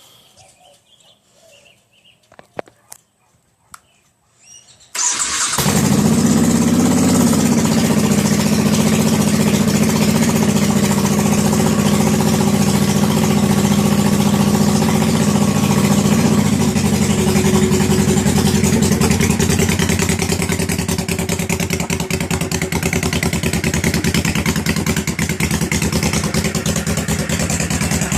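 A few light clicks, then about five seconds in a carbureted engine starts abruptly and settles into a steady idle. It is idling on a newly fitted idle air/fuel pilot screw set two turns out, running a lot better though still needing some tuning.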